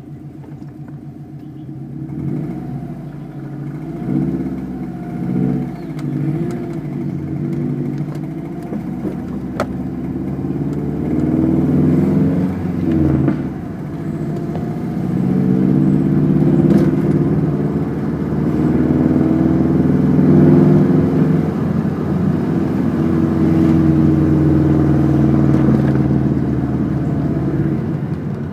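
2006 Subaru WRX's EJ255 turbocharged flat-four engine running, its pitch rising and falling as engine speed changes. The engine is making the tapping the owner reports as fairly loud around 1500 RPM under light load, which he suspects is rod knock from running low on oil.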